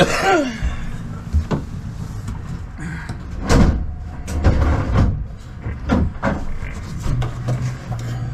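Irregular knocks, thumps and clatter of gear being handled and set down inside a small fibreglass boat cabin. A steady low hum comes in near the end.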